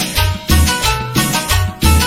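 Recorded dance music playing loudly: a steady bass beat about every half second or so under held melodic notes.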